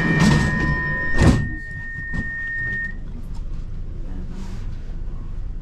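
Metro train's steady door-closing warning tone, then the sliding doors shut with a single loud thud about a second in. The tone fades out soon after.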